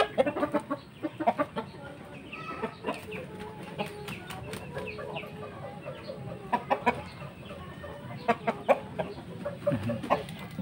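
Game chickens (Asil and Shamo) clucking in short calls, with scattered sharp taps, the loudest right at the start and more in clusters later.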